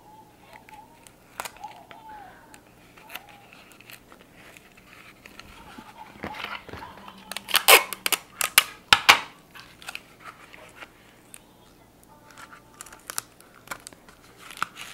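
Cardboard toilet paper roll being handled and pressed together, crinkling and rustling with scattered clicks. The loudest part is a quick run of sharp crackles about eight to nine seconds in.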